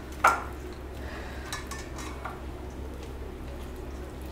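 A hand mashing boiled potatoes in a stainless steel bowl: a sharp clink against the bowl just after the start, then a few softer taps, over a steady low hum.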